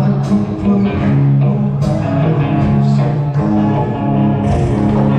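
Live band playing music, with held bass notes under the other instruments.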